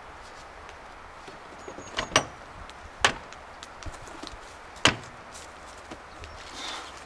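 A few sharp knocks of hard objects at uneven intervals: a quick pair about two seconds in, another about a second later, and the loudest near five seconds, over a light steady hiss.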